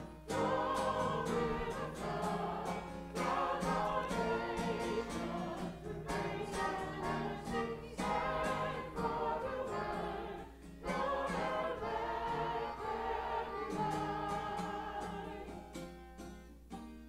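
A small church choir singing together, accompanied by a strummed acoustic guitar. The singing grows quieter near the end.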